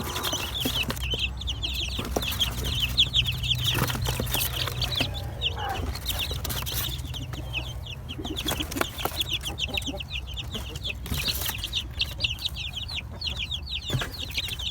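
A flock of about sixteen two-week-old chicks peeping continuously: many high, short, downward-sliding peeps overlapping, with scattered knocks and clicks of handling.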